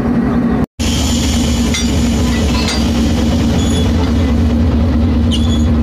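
Railway engine running steadily with a deep hum, and a few sharp metal clinks as a locomotive coupling is worked by hand. The sound drops out for a split second just under a second in.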